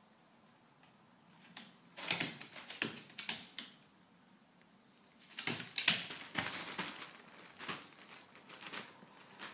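A dog moving about: quick clicks and rattles of its claws and jingling collar tag, in two busy bursts, one about two seconds in and a longer one from about five and a half seconds in.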